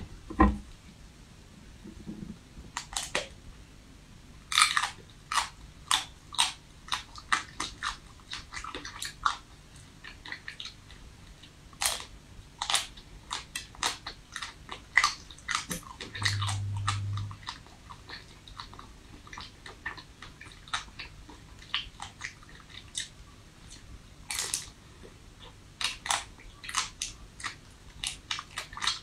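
Biting and chewing a hard-frozen ice cream bar: a steady run of sharp, crisp crunches, several a second, starting a few seconds in.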